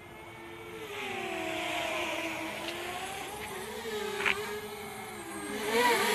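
DJI Spark drone's propellers whining, the pitch sliding up and down as it manoeuvres, swelling about a second in and louder again near the end as it comes in close. A couple of sharp clicks sound over it.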